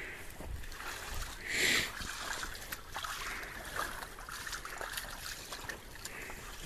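A llama wading and splashing in a shallow, muddy water trench: water sloshing and dribbling around its legs, with one brief louder burst about a second and a half in.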